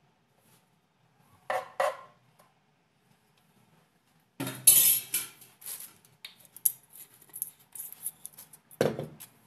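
A metal spoon clinks twice against a pot, then kitchen clatter of utensils and pot follows with a loud crackle and a string of irregular clicks, and a heavier thump near the end.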